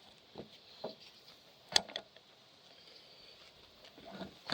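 A few faint clicks and light knocks of small parts or tools being handled, the sharpest about two seconds in, over a quiet background.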